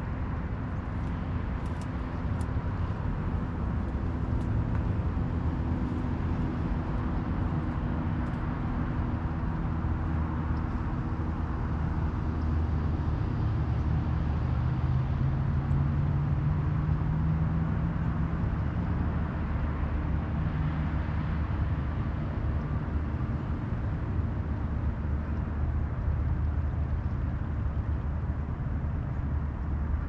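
Low, steady rumble of distant engines, with a motor drone that rises slightly in pitch around the middle.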